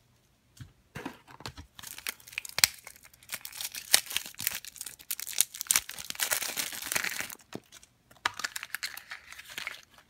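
Crinkling and rustling of a thin plastic blind-bag wrapper, with sharp clicks as a plastic toy pumpkin capsule is handled and pulled open. It starts about a second in and breaks off briefly near the end.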